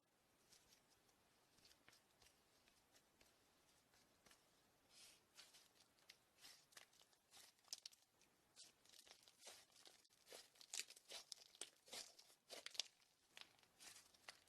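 Faint crackling and clicking from slime being squeezed and poked by hand, sparse at first and growing busier from about five seconds in.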